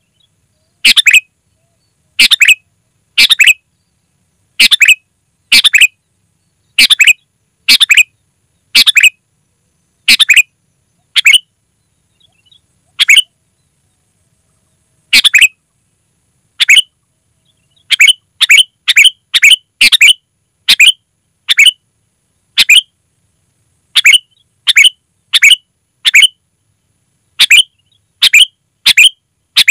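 Sooty-headed bulbul (kutilang) calling loudly: short, clear calls, mostly in pairs of notes, repeated about once a second, with a pause about halfway through and then a quicker run of calls.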